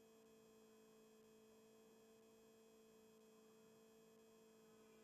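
Near silence, with a faint steady hum of two low tones.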